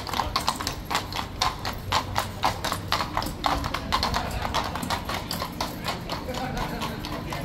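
Horse hooves clip-clopping on stone paving, a quick irregular run of hoofbeats from carriage horses passing, thinning out near the end.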